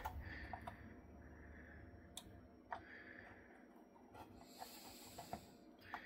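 Near silence, with a few faint, sharp clicks as 30-pin SIMM memory modules are handled and pressed into their sockets on an Atari STE motherboard, and faint breathing.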